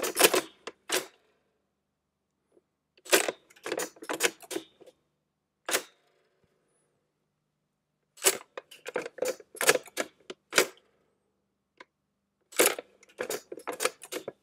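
The metal action of a Maxim Prototype machine gun being worked by hand, its lock and feed parts clacking in four bursts of rapid metallic clicks a few seconds apart.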